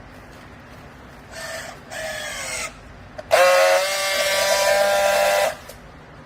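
Clothes baling press machinery whining: two short bursts, then a louder, steady, high whine of about two seconds that cuts off suddenly.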